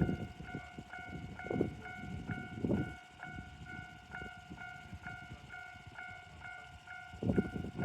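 Japanese railway level-crossing warning bell ringing: an electronic ding, higher-pitched than the usual crossing tone, repeated about twice a second. Under it is a train's heavy rumble and clatter, loud for the first three seconds, easing off, then swelling again near the end.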